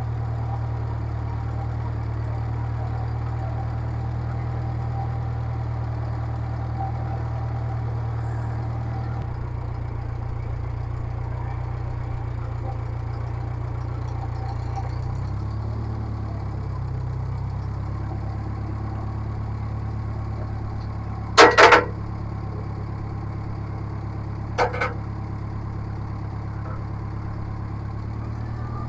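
Gasoline engine of a John Deere loader tractor running steadily, its note shifting a little about a third of the way in and again around halfway. Two loud, sharp knocks come about three quarters of the way through, a few seconds apart.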